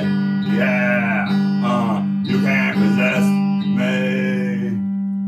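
Guitar music: chords strummed over a steady low held note, ending about five seconds in on a sustained chord.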